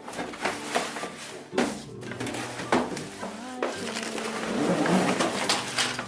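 Plastic toys being taken out and handled: several knocks and clicks, then rustling that grows louder near the end, over faint background music.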